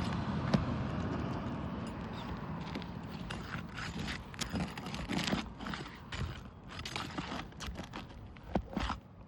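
Irregular knocks, clicks and scrapes of hands and tools working on asphalt roof shingles during a shingle repair.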